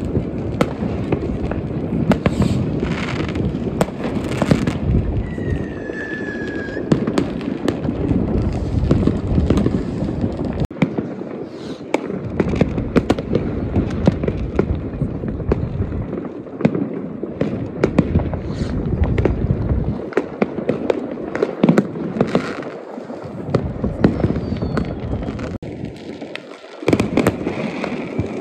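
New Year's Eve fireworks going off all around: a continuous barrage of bangs and crackling from rockets, firework batteries and firecrackers, with a short falling whistle about five seconds in.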